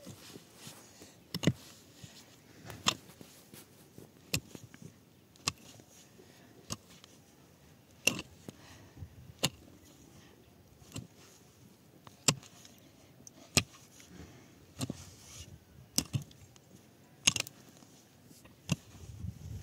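A pickaxe striking dry, stony earth over and over while digging a hole, about one blow every second and a half.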